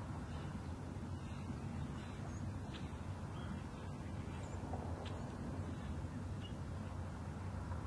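Steady low rumble of a diesel freight locomotive's engine, with a few faint high ticks over it.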